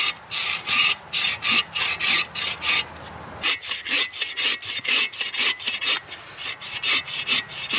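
Folding bow saw (Agawa Boreal 21) cutting a wet log about four inches thick, in back-and-forth strokes. The strokes come about two a second, break off briefly about three seconds in, then resume faster.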